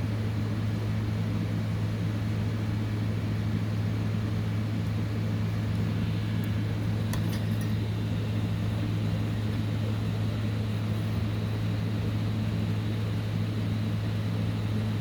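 Hot-air heat gun running steadily during chip desoldering: a low hum with a steady airflow hiss. A few faint ticks come about seven seconds in.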